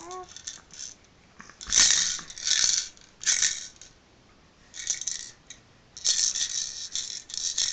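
Plastic toy maraca rattling as it is shaken: four short shakes, then almost nonstop shaking over the last couple of seconds.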